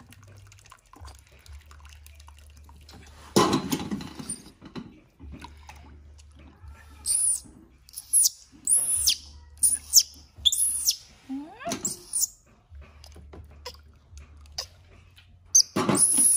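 Newborn baby monkey giving a run of shrill, high cries, each rising and then falling, about one a second, while being bathed in a small tub of water. A splash of water comes about three seconds in and another near the end.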